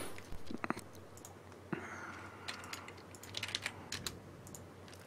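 Faint, scattered clicks and taps on a computer keyboard and mouse.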